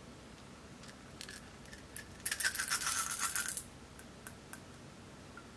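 Small red beads poured out of a small glass bottle into a glass baking dish, rattling for about a second and a half, followed by a few single clicks.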